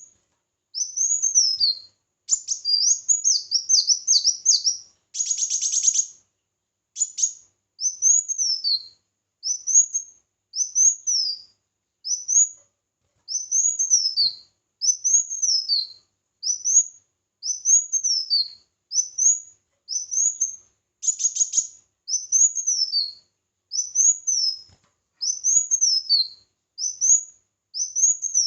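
A small songbird calling over and over: thin, high chirps, each a quick rise-and-fall note, about one a second, with a quick run of notes a couple of seconds in and a buzzy rattle around five seconds in and again near the end.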